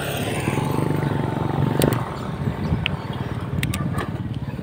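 A motor vehicle's engine running steadily, with a few sharp clicks about two seconds in and again near the end.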